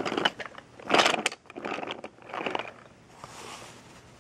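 Toy train wagons pushed by hand along wooden track, their wheels rattling and clattering over the track in several bursts, loudest about a second in, then dying away to a faint hiss.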